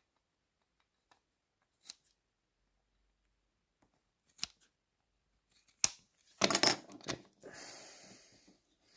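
Scissors trimming excess newspaper: a few faint clicks, then several sharp snips about two-thirds of the way in, followed by a softer, longer cut through the paper.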